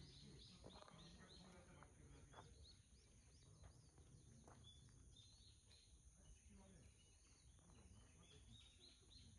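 Faint birdsong in woodland: quick, high, repeated chirps from small birds, over a faint low rumble.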